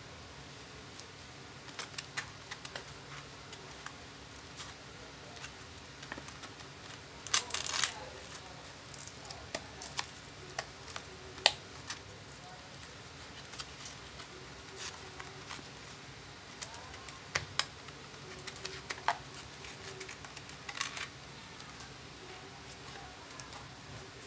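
A sheet of sandpaper being handled and fitted onto an orbital sander's pad: paper rubbing and crinkling, with scattered clicks and taps of the sander's plastic body and metal clamp. Two short louder rustles come about seven and twenty-one seconds in.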